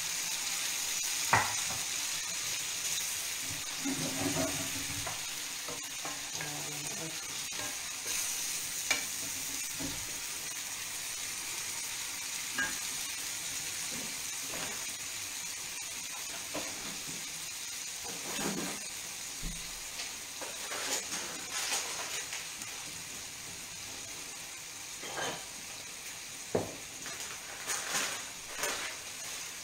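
Romanesco broccoli and skate pulp, loosened with a little broth, sizzling steadily in a frying pan on a gas flame, with occasional sharp clicks.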